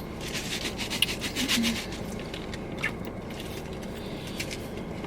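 Rubbing and rustling: a quick run of scrapes in the first two seconds, then a few scattered strokes, over a low steady hum.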